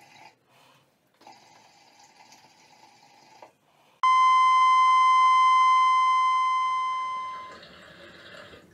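Muvo 502 Nano hookah bubbling softly as smoke is drawn through the hose, in two draws. About four seconds in, a loud, steady electronic beep cuts in, holds for about three seconds and fades out, with soft bubbling again near the end.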